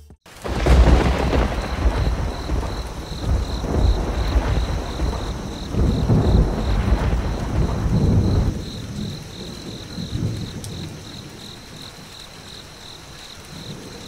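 Thunderstorm: thunder rumbling over steady rain, starting abruptly. The rumbles are heaviest in the first eight seconds, then die down to rain alone. A faint high chirp pulses about three times a second throughout.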